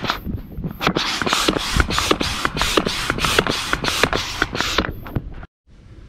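Manual air pump inflating the second chamber of an inflatable kayak: rhythmic pumping strokes, each a rush of air, about three a second, stopping about five seconds in.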